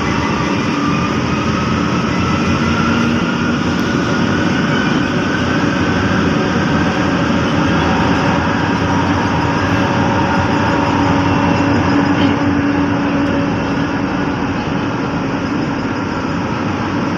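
MRT-3 light-rail train running, heard from inside the passenger car: a steady rumble of wheels on the track. Over the first several seconds a faint whine rises in pitch.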